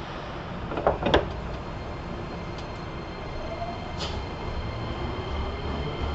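Nagoya Municipal Subway N3000-series train heard from inside the passenger car: two sharp knocks about a second in, then the traction motors begin a rising whine and the running rumble grows as the train picks up speed.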